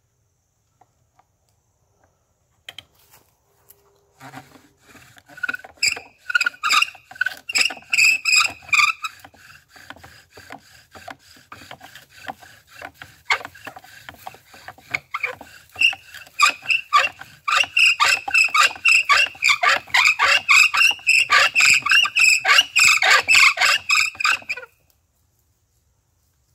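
Wooden bow drill with a lever hold-down press, bowed back and forth to grind the spindle into the fireboard for a friction-fire ember: a rhythmic, squeaky rasping with each stroke. It starts a few seconds in, becomes faster and steadier in the second half, and stops suddenly near the end.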